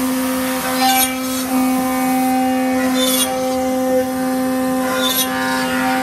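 CNC router spindle running at a steady whine while machining aluminium. About every two seconds there is a short hissing rush of cutting noise.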